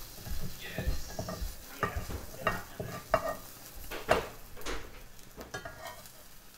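Omelette eggs cooking in a frying pan with a light sizzle, while a utensil scrapes and knocks against the pan about six times.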